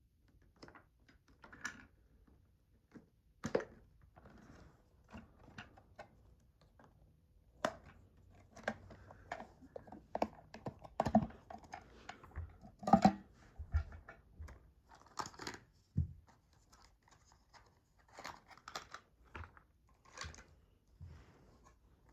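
Packaging of a boxed Bluetooth speaker being opened and handled: irregular scrapes, tearing and clicks, busiest in the middle.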